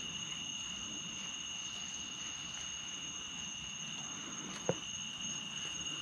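Steady, high trilling of night crickets, with a single sharp click a little under five seconds in.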